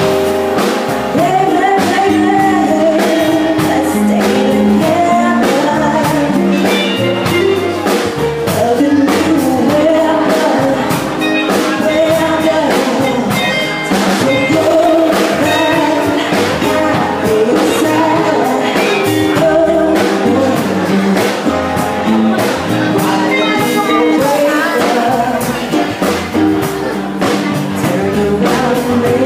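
Live band playing: a singer's vocals over electric guitar and drums.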